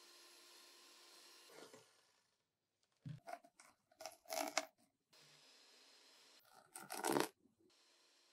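Kitchen things being handled around a glass mixing bowl: two clusters of short, sharp clicks and knocks, the second near the end the loudest, over faint room tone.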